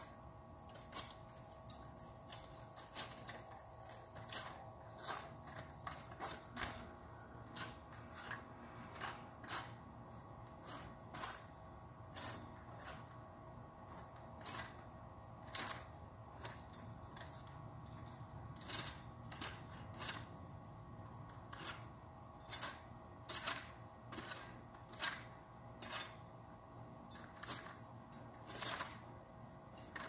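Hand pruning shears snipping through small branches: a string of sharp, irregular snips, about one or two a second, over a faint steady hum.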